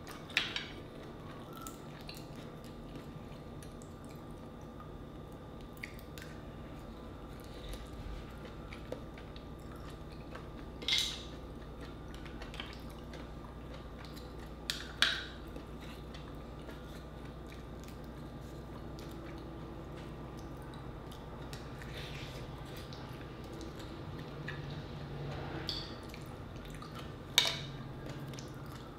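Mussel shells clicking as they are handled and pried apart by hand, a few sharp clicks well apart standing out, with soft wet eating and chewing sounds between them.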